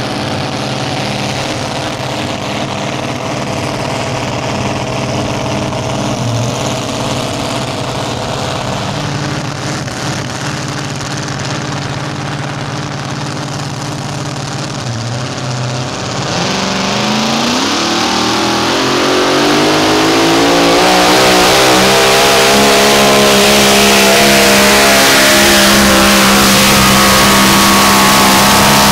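Super modified four-wheel-drive pulling truck's engine running at a steady speed, then about 16 seconds in revving up with a rising pitch and getting much louder, held at high revs to the end as it pulls the sled down the track.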